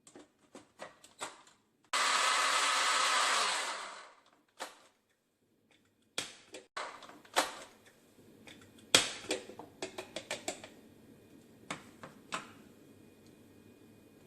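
Electric grinder whirring in one burst of about two seconds that then winds down, grinding soaked red lentils with a little water. Scattered clicks and knocks before and after it.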